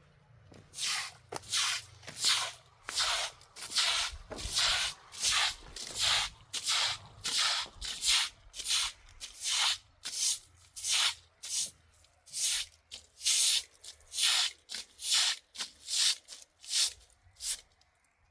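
Rhythmic brushing strokes, about one and a half a second, each a short swish, starting about a second in and stopping shortly before the end.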